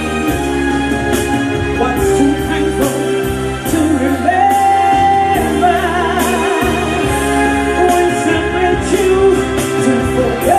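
Live band music with a steady drum beat under a held melody line that wavers with vibrato.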